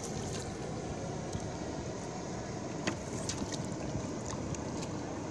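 Water swishing and lapping around a person wading waist-deep while handling a cast net, a steady rush with a few light clicks.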